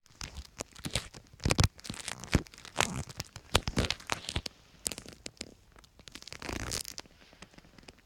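Footsteps crunching in fresh snow, an irregular series of crisp crunches with a longer crunch near the end.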